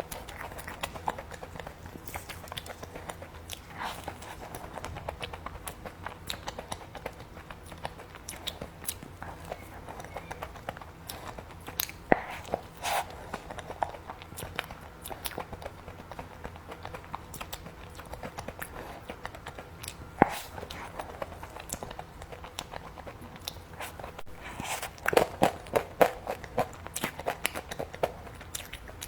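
Close-miked eating of cookies and cream: steady chewing and mouth sounds with crisp crunchy bites, louder clusters of bites about twelve seconds in and again near the end.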